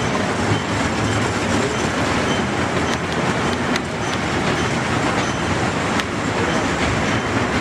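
Small amusement-park kiddie train running on its circular rail track, its wheels on the rails making a steady noisy rumble with a few light clicks.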